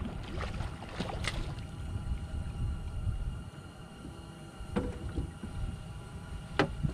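Handling noise aboard a small fishing boat as a small catfish is brought in: a low steady rumble with a faint steady hum, broken by a few sharp knocks and clicks, about a second in, near the middle and shortly before the end.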